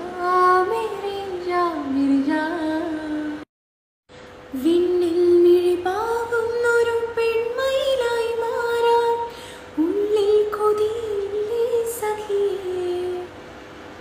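A woman singing a slow Malayalam film song unaccompanied, with long held notes that slide between pitches. The singing breaks off into a brief dead silence about three and a half seconds in, then resumes.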